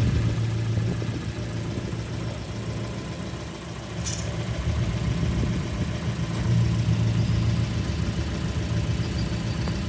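2015 Fiat 500 Abarth's 1.4-litre turbocharged four-cylinder engine idling, its low hum swelling and easing every few seconds. A short sharp click about four seconds in.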